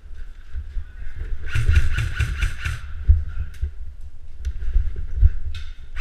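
Low rumbling and knocking picked up by a body-worn GoPro as its wearer moves, with a quick run of sharp snaps, about five a second, starting about a second and a half in and a few single snaps after.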